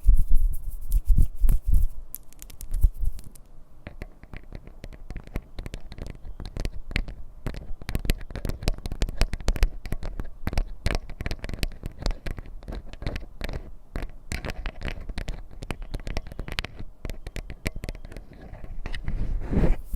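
Close-miked ASMR tapping and scratching: many quick, irregular taps and scrapes of fingers or nails on objects, heavier and louder in the first few seconds.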